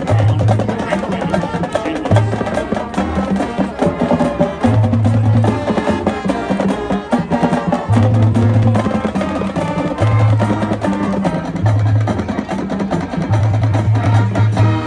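High school marching band playing a loud, up-tempo number: rapid drumline strikes under brass, with recurring held low brass notes.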